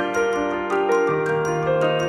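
Background music: a melody of held notes changing every half-second or so over a steady, quick beat.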